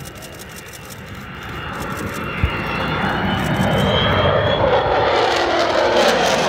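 Avro Vulcan XH558's four Rolls-Royce Olympus turbojets, growing steadily louder as the delta-wing bomber comes in low towards the listener, with a thin high whine over the rumble.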